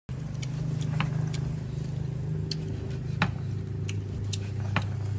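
Several sharp knocks of a chef's knife on a wooden chopping board as grilled beef is sliced, the loudest about three seconds in, with a few light metallic clinks. Under them a motor runs with a steady low hum that shifts slightly in pitch about two seconds in.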